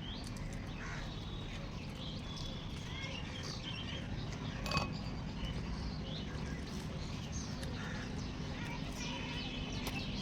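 Small birds chirping on and off over a steady low hum, with one sharp click about halfway through.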